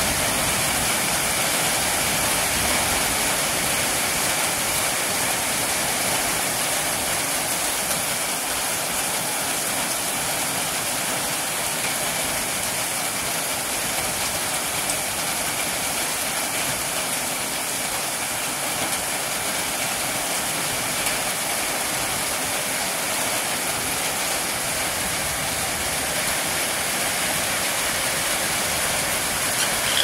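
Heavy rain falling steadily, a constant rushing hiss of water.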